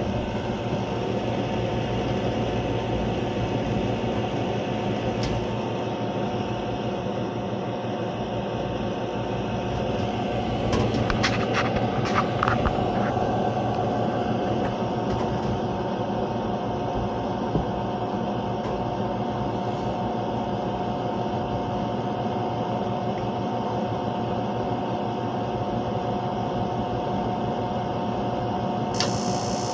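Magic-Pak packaged gas heating unit running steadily, with its new inducer motor and fan giving a constant hum and a steady whine, while it is being tested for high carbon monoxide. A few light clicks come partway through.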